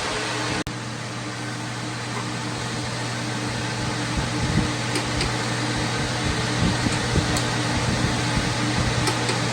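Steady hum of a fan motor running, with a few faint ticks.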